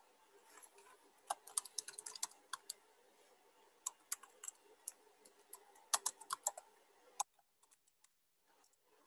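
Typing on a computer keyboard: quick key clicks in three short runs, then the background cuts out to near silence near the end.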